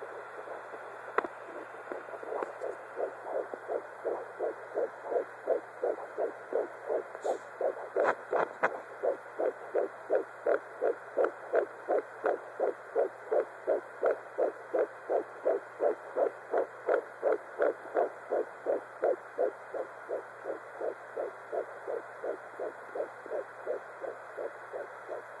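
Fetal doppler picking up a 12-week fetus's heartbeat: a fast, even pulse of between two and three beats a second, fainter for the first few seconds, then strong and steady. A few sharp clicks about eight seconds in.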